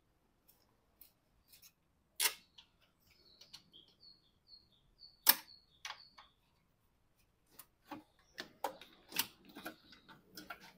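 Scattered sharp clicks and knocks, with a few louder ones about two, five and nine seconds in, as the tray over a Fiat 500's thermostat is worked loose and lifted out of the engine bay. A short run of faint high chirps sounds between about three and five seconds in.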